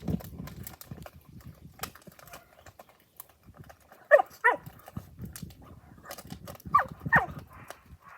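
Boerboel puppy giving short whines that fall steeply in pitch, two in quick succession about halfway through and two more near the end, with low grumbling near the start and light clicking throughout.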